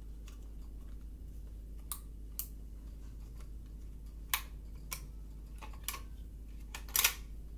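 A few irregular sharp clicks and light taps of small hard objects being handled, the loudest a quick double click near the end, over a steady low hum.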